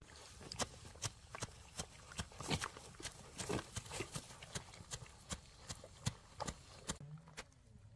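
Footsteps on hard ground, sharp steps about two to three a second.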